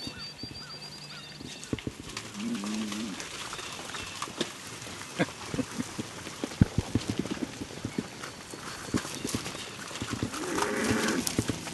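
Cattle moving off through dry grass: many uneven hoofbeat knocks, with two short pitched calls, one a few seconds in and one near the end.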